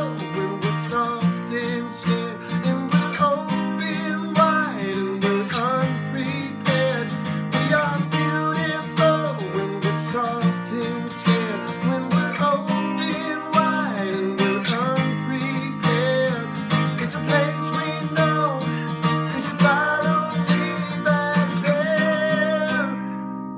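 Acoustic guitar strummed steadily while a man sings over it, his voice sliding between long held notes; the strumming eases off just before the end.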